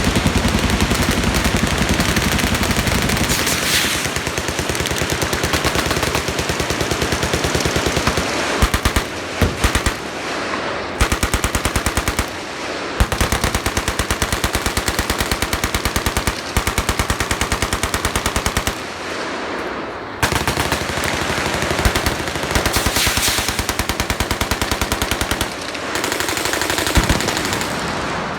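Many machine guns firing full-auto together in a continuous, overlapping rattle of rapid shots. The firing dips into short lulls a few times and eases off near the end.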